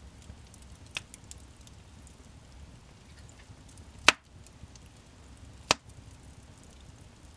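Wood fire in a fireplace crackling, with three sharp pops: one about a second in, the loudest about four seconds in, and another near six seconds, over a low, steady rumble of burning.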